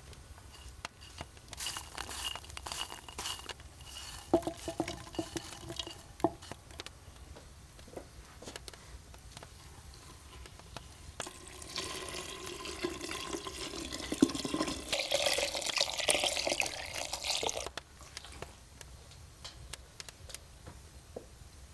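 Light clinks and knocks of kitchen utensils, then water running or pouring for about six seconds in the second half.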